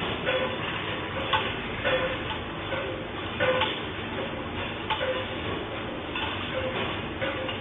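Restaurant kitchenware (dishes, pots and metal utensils) rattling and clinking irregularly as an earthquake shakes the kitchen, over a steady rumbling roar.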